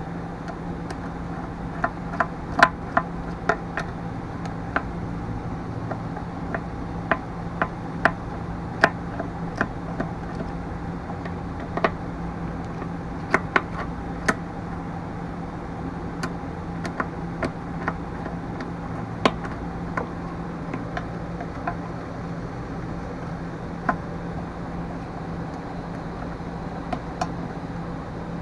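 Scattered small clicks and taps of a Phillips screwdriver working screws out of a small-engine carburetor and tank assembly, with small metal parts being handled, at uneven intervals over a steady low hum.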